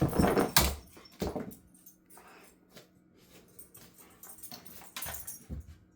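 A pet playing with a cat toy: a loud scuffle of noisy knocks and scrapes in the first second and a half, then scattered light clicks and taps.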